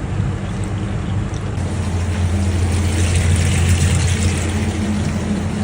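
A motor running steadily with water rushing, the hiss of the water swelling for a couple of seconds midway.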